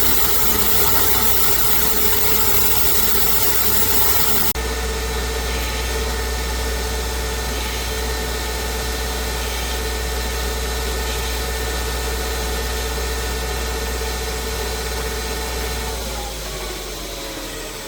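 CNC-converted lathe spindle running steadily while the tool step-roughs the face of a 6061 aluminium hex blank, a steady machine hum with several held tones. The sound changes suddenly about four seconds in, and near the end the tones shift and glide as the spindle speed changes.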